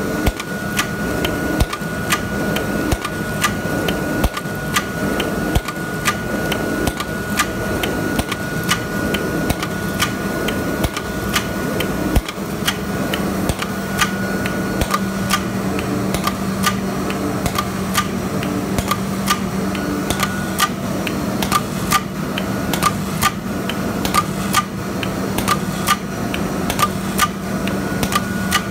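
A carton folder-gluer line running, fitted with a hot-melt glue gun and a double-sided tape applicator. There is steady mechanical noise under rapid, irregular sharp clicks, several a second. A faint high whine fades out after the first half, while a low hum comes in about halfway.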